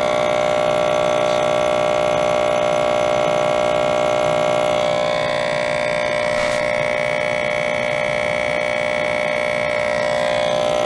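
Small electric air-and-vacuum pump running steadily in vacuum mode, drawing water through tubing into a glass carboy: a steady hum with a whining overtone that shifts in pitch about five seconds in.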